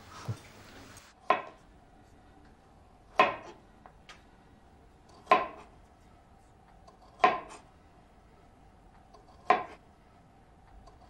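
Kitchen knife chopping on a wooden cutting board: five separate sharp knocks about two seconds apart, each with a brief ring.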